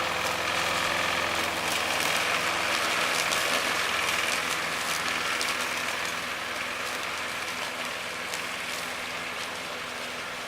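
Lawn mower engine running at a steady pitch, gradually growing fainter as it moves away.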